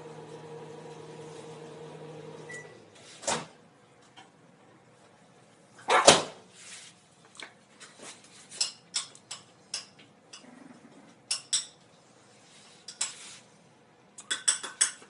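A kitchen appliance hums steadily and stops just after a short beep about two and a half seconds in. Then comes a knock, a louder clatter about six seconds in, and a string of short clicks and taps, as of dishes being handled for the puppy's meal.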